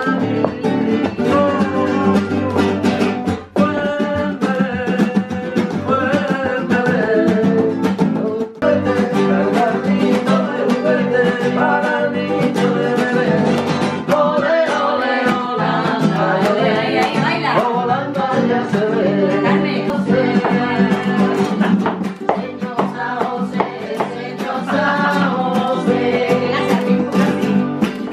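Two Spanish guitars, one of them a flamenco guitar, strummed and plucked in flamenco style while voices sing along. Two brief dropouts early on sound like cuts.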